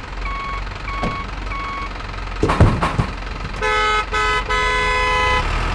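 Delivery truck sound effects: three evenly spaced reversing beeps, then two sharp thumps, then a truck horn honked twice briefly and once long.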